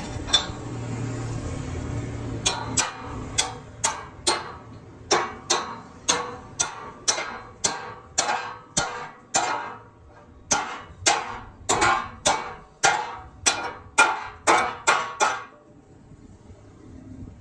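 A hammer striking metal again and again, about two sharp, ringing blows a second, stopping about two seconds before the end.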